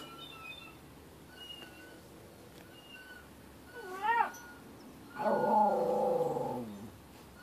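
Dog howling: a brief cry that rises and falls about four seconds in, then a loud, longer howl that slides down in pitch for almost two seconds. Faint short high-pitched notes come before it.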